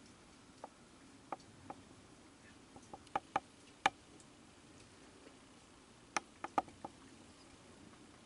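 A young raccoon foraging around a metal washtub on a wooden deck: irregular sharp clicks and taps, a few at first, then two quick clusters about three and six seconds in.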